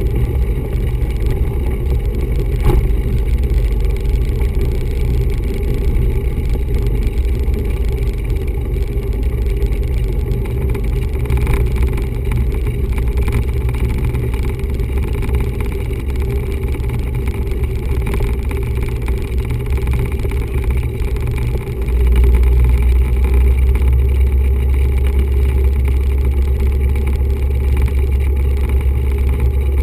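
1974 Cessna 172's four-cylinder piston engine running steadily, heard from inside the cabin as a loud, low rumble. The deepest part of the rumble grows louder about two-thirds of the way through and stays up.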